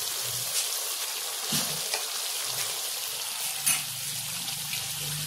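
Chicken keema and peas, with a bowl of water added, simmering in a pan with a steady sizzle. A spatula knocks against the pan twice, about one and a half and three and a half seconds in.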